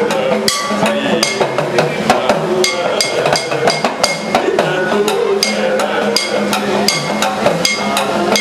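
Sopana sangeetham singing by an elderly male voice, kept in time by strikes on a chengila, a small bell-metal gong hit with a wooden stick, about two ringing strikes a second, over a steady low hum.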